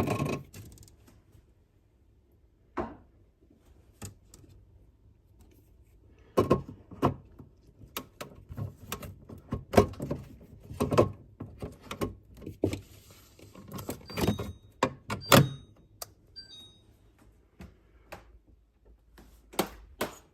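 Refrigerator water filter being swapped out by hand: a series of plastic clicks, knocks and rattles from the filter and its housing. They come singly at first, then thickly for several seconds midway, then a few more knocks near the end.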